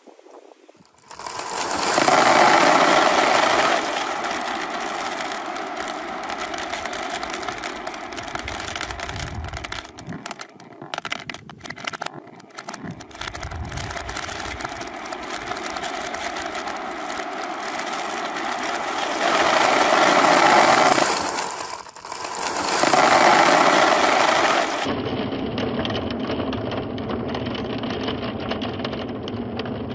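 Dozens of glass marbles and plastic balls rolling down plastic gutter chutes and circling round a large plastic funnel bowl: a continuous dense rolling rattle with clicking as they knock together. It swells louder a couple of seconds in and twice more later on.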